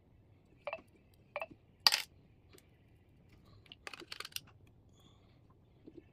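Small sharp clicks and taps of a phone's SIM card tray and SIM card being handled: three spaced clicks, the loudest about two seconds in, then a quick cluster of clicks about four seconds in.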